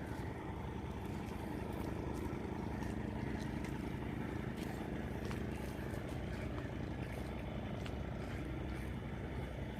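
Fishing boat's engine running with a steady low drone as the boat heads out to sea.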